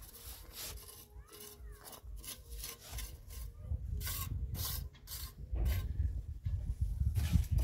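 Irregular scraping strokes, about two or three a second, with a low rumble that comes in and grows louder about halfway through.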